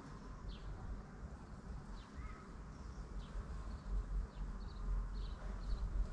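Bees buzzing around flowers, with short high chirps scattered through it and a low rumble underneath.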